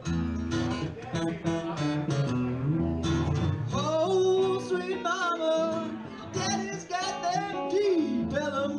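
Acoustic guitar strumming with an electric guitar playing an instrumental blues break, a lead line with wavering and bent notes, one sliding down near the end.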